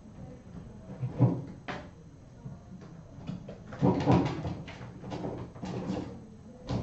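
Kittens playing, making a string of irregular knocks, bumps and rattles, loudest about a second in and again around four seconds in.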